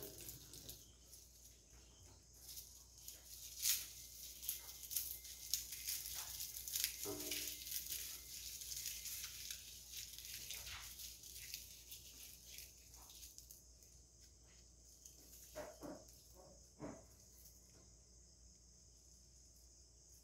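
Faint rustling and crackling of lemongrass stalks being peeled and cleaned by hand, busiest in the first half. A few soft knocks come about three quarters of the way through.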